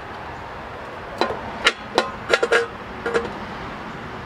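Steel cutting pliers clicking and clinking against an aluminum brazing bead and tank, several sharp metallic clicks between about one and three seconds in, each with a brief ring. The pliers are prying at the bead to test whether the fluxless aluminum brazing rod has bonded to the tank.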